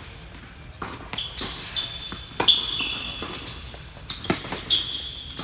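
Tennis ball struck by racquets and bouncing on an indoor hard court during a doubles rally: a string of sharp hits and bounces, the loudest about halfway through. Short high squeaks of sneakers on the court come in between the hits.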